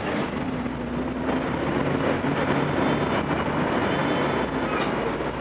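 Tram running along its rails: a steady rumble of wheels on track with a low electric motor hum that shifts in pitch now and then.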